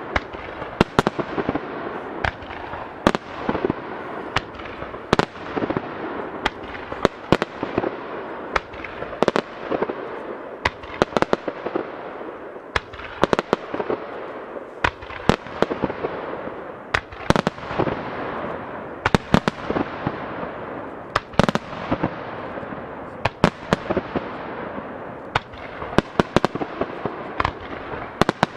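Fireworks display: aerial shells bursting in a steady run of sharp bangs, about one or two a second, with a continuous crackle and echo filling the gaps between them.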